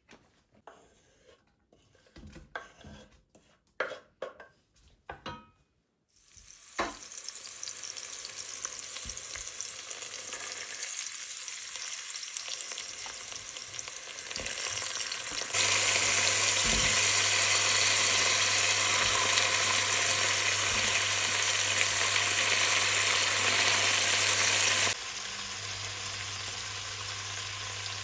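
A few clattering knocks, then an electric kitchen appliance's motor running with a steady hum and hiss. It steps up to a louder, higher setting about halfway through and drops back down near the end.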